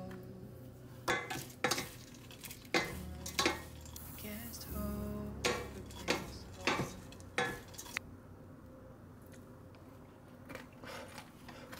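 Wooden spoon and wooden chopsticks tossing crisp dried anchovies and sesame seeds in a stainless steel pot off the heat. They knock and scrape against the pot wall about nine times in the first eight seconds, and then only lightly.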